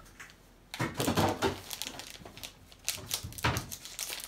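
Scissors snipping through a plastic bag, in two bursts of quick cuts with the plastic crinkling.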